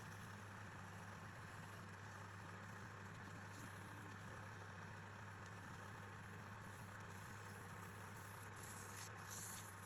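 A wood lathe's electric motor running steadily with a faint, even low hum.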